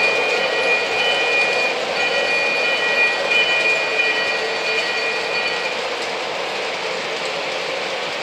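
O-gauge model freight trains rolling on three-rail track: a steady rumble and clatter of wheels, with thin high tones that come and go until about six seconds in.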